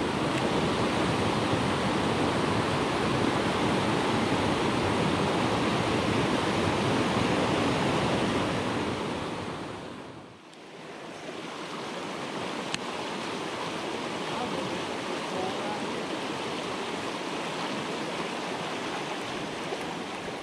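Steady rush of a rocky mountain creek's shallow rapids. It dips briefly about halfway through and comes back a little softer.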